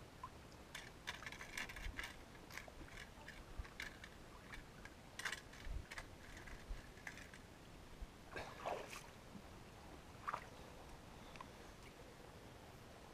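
Faint scattered splashes, crunches and clicks of a person moving through shallow water and over rocks at a river's edge. The clicks are densest in the first few seconds, and a few soft thumps are mixed in.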